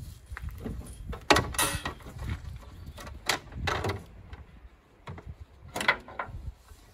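Ratchet tie-down strap being released: a handful of sharp metallic clicks and clatters from the ratchet buckle, spread over several seconds.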